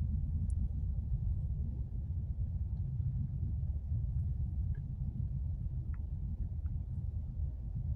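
Steady low rumble with a few faint, short high ticks.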